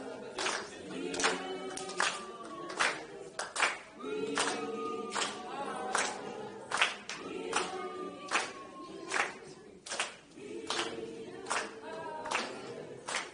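A group of voices singing together in long held phrases, with sharp claps or percussive strikes keeping an uneven beat about every half second to second.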